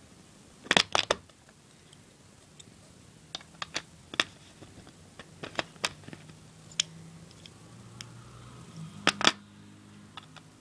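Plastic Lego bricks clicking as they are handled and pressed onto a baseplate: three loud clicks in quick succession about a second in, scattered lighter clicks through the middle, and two loud clicks near the end. A faint low hum lies underneath in the second half.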